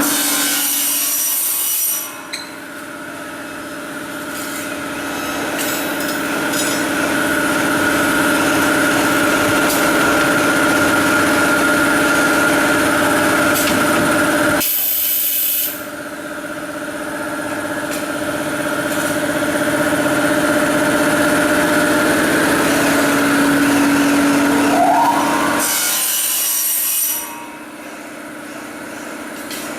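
CNC corner cleaning machine for welded PVC window frames running, its cutters and spindle motors giving a steady machining whine with a rasping, sawing quality. Three times, at the start, about halfway and near the end, a loud hissing burst of noise lasting a second or two breaks in.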